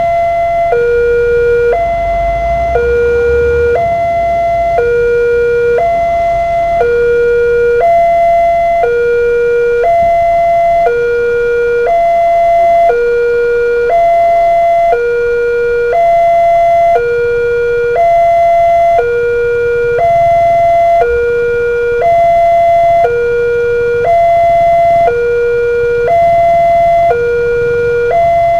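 Railway level-crossing warning alarm from the loudspeaker on the crossbuck pole: two tones, low then high, alternating about once a second without a break, signalling that a train is approaching and the crossing is closed. A vehicle's engine rumbles past in the first few seconds.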